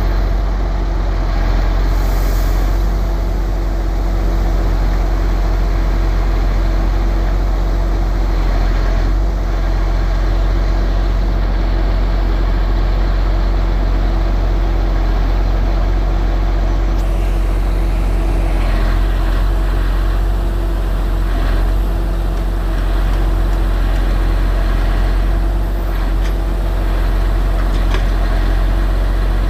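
Log truck's diesel engine running steadily at a low, even hum, with a few faint clicks and knocks in the second half.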